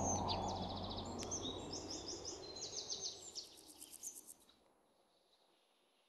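Small songbirds chirping in quick repeated twitters and short trills over a low hum, all fading away and dying out to silence a little past four seconds in.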